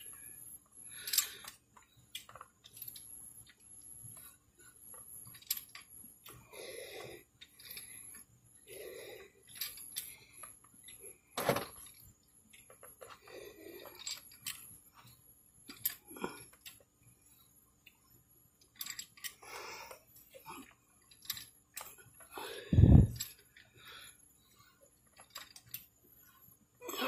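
Ratchet wrench clicking, with metal handling noises, as an engine's crankshaft is turned slowly by hand at the crank pulley bolt for a finger-over-the-plug-hole compression check. There is a sharp click about halfway through and a heavier thud near the end. The expected compression has not come, which the owner finds weird.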